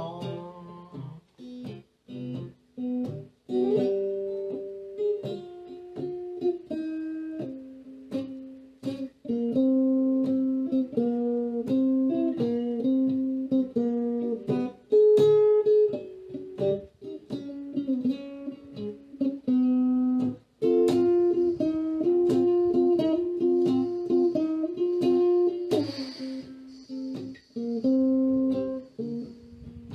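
Hollow-body electric guitar playing a blues instrumental break: picked single notes and two-note chords, with some notes left ringing.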